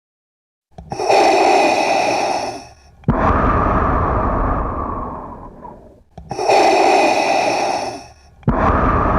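Darth Vader's respirator-mask breathing sound effect: after a moment of silence, two slow breaths, each a hissing in-breath with a faint whistle followed by a longer out-breath that fades away.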